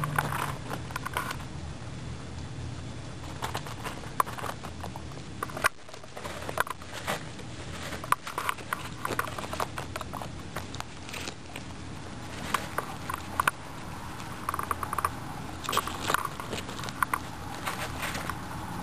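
Guinea pigs chewing pieces of carrot: irregular crisp crunches and clicks of their teeth.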